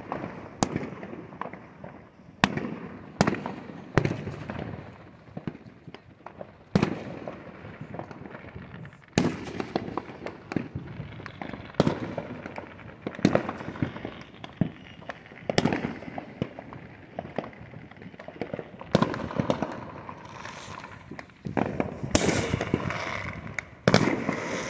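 Distant fireworks going off: a dozen or more sharp bangs at irregular intervals, each trailing off, with a thicker spell of crackling in the last few seconds.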